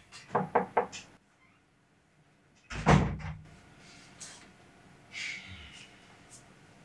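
Three quick knocks on a wooden door, then about three seconds in a single heavy door thud that rings briefly, followed by faint rustling of someone moving about.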